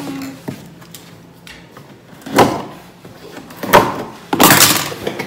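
A cardboard box being opened by hand: two sharp knocks and scrapes of the box, then a noisy half-second rip or scrape of cardboard near the end.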